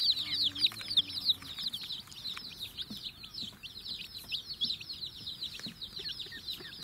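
A group of young domestic chicks peeping without pause, many short, high, falling peeps overlapping each other.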